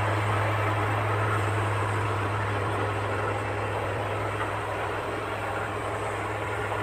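Diesel engine of heavy earthmoving machinery running steadily: a constant low drone under a broad noisy wash, easing slightly in level.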